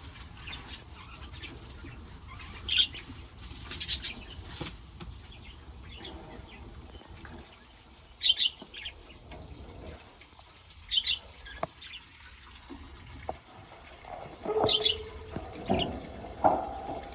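Pet budgerigars and lovebirds chirping in short, sharp calls every few seconds over a faint rush of water, with busier chatter near the end.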